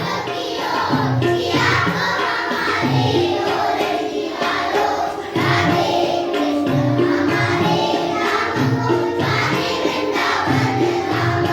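Children singing a devotional Krishna song together over accompanying music.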